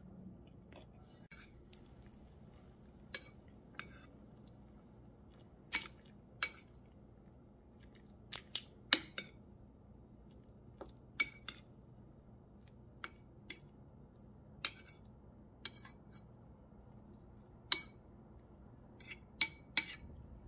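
Metal fork clinking against a ceramic bowl while tossing a salad: about twenty sharp, uneven clinks, some in quick pairs, the loudest near the end.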